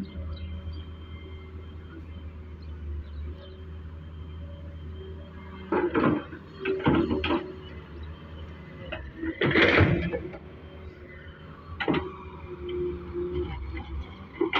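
Solar 130W excavator's diesel engine running with a steady low rumble. Four loud bursts of clanking and scraping come in the second half, the loudest about ten seconds in.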